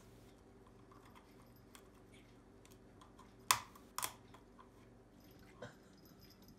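A cat and a puppy gnawing on a rolled chew stick: faint scattered clicks and crunches, with two sharper clicks about half a second apart midway through.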